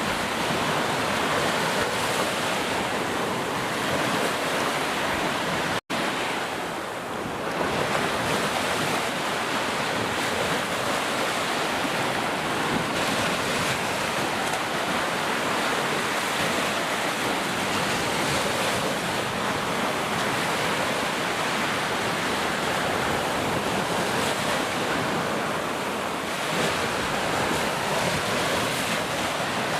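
Heavy rain falling in a steady, even hiss, breaking off for an instant about six seconds in before carrying on.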